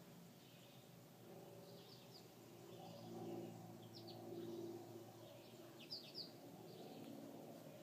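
Near silence: a faint low hum with scattered faint, short high-pitched chirps, the two loudest about six seconds in.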